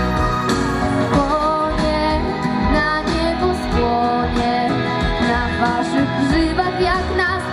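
A song played through the stage PA: a recorded backing track with guitar, with a girl singing into a handheld microphone.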